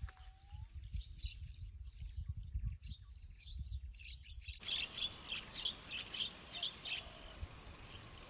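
Wild swamp chorus of birds and insects: short chirps repeating about twice a second, joined about halfway through by a steady high-pitched insect buzz. In the first half, soft low thumps and rustling of handling the rod and line.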